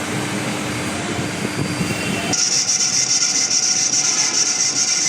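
Steady machinery noise, which changes abruptly about two seconds in to a loud, high, steady hiss-like whine.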